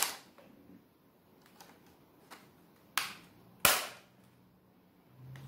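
Plastic retaining clips of an Acer Aspire E15 laptop's top case snapping loose as it is pried off by hand: a few sharp clicks, the loudest near the end, with fainter ticks between. A low steady hum starts just before the end.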